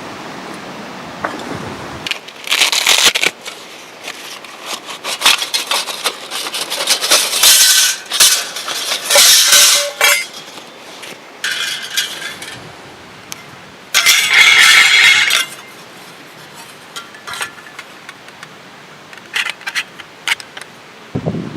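Scraping and clinking of handled objects, in irregular bursts of a second or two, some with a brief metallic ring.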